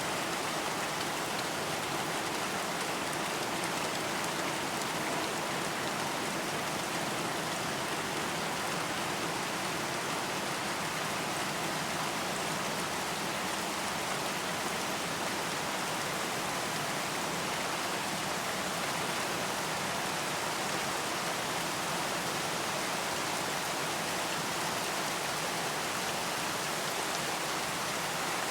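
Steady rain: an even, unbroken hiss of falling raindrops with no pauses or changes.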